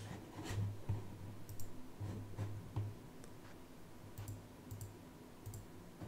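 Faint, irregular light clicks from computer use, about a dozen, some coming in quick pairs.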